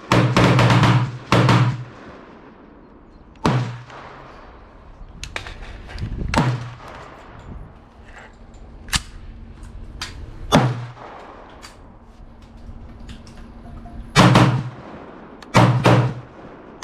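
Gunshots at a shooting range, about eight in irregular succession, each a sharp crack with a ringing echo tail. The loudest come at the very start and in a pair near the end, with fainter ones in between.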